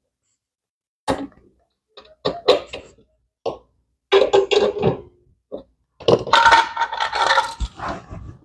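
Irregular scraping, knocking and clattering from handling tools and metal parts during a refrigerator compressor replacement, in several separate bursts, the longest near the end.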